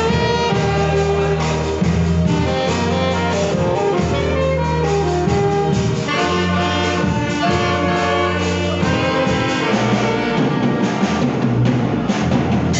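Children's alto saxophone ensemble playing a hymn tune together in held notes, over a slow-moving bass line.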